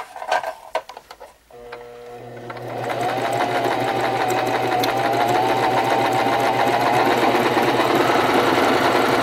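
Domestic electric sewing machine stitching a decorative finishing stitch along a fabric edge. After a few light clicks, the motor starts about a second and a half in, speeds up, then runs steadily with fast, even needle ticks.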